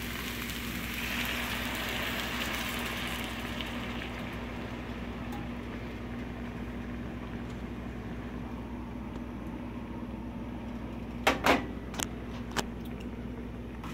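Mushrooms and onions sizzling in a frying pan, the sizzle dying away over the first few seconds as heavy cream is poured in and cools the pan, over a steady low hum. A few sharp knocks near the end.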